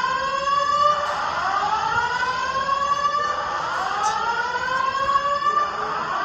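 Fire alarm evacuation tone from Simplex TrueAlert speaker strobes: a rising whoop that sweeps up in pitch and restarts about every two and a half seconds, sounding loudly and continuously.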